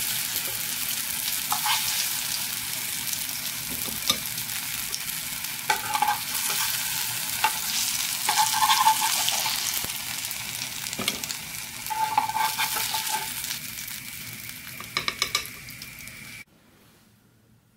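Oil sizzling as oatmeal-banana fritters fry in a pan, with a metal spatula clinking now and then as the fritters are lifted out. A quick run of clicks comes near the end, then the sizzle cuts off suddenly.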